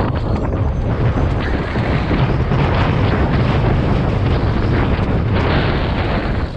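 Downhill mountain bike running fast over a dirt and rock trail: heavy wind buffeting on the rider's camera microphone, tyre rumble, and frequent rattling knocks from the bike over the rough ground.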